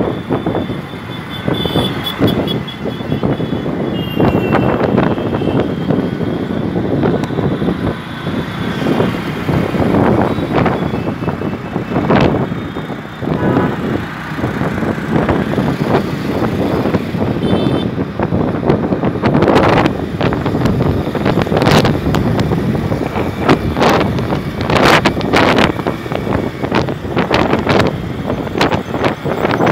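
Wind buffeting the microphone of a phone carried in an open vehicle on the move, over the steady engine and tyre noise of road traffic, with gusts coming and going throughout.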